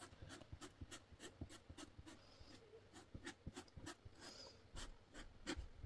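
Faint scraping and light ticking of a metal palette knife scooping and working thick sculpture paste on a paper palette, in short irregular strokes.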